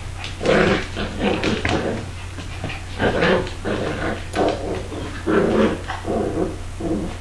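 A Labrador and a Border Collie puppy play-wrestling, with a run of short play growls, about eight in all. A steady low hum runs underneath.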